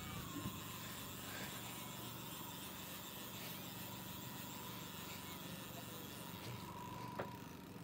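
Yamaha outboard motor running slowly at trolling speed: a steady low hum with a faint whine that drops slightly in pitch within the first second, then holds.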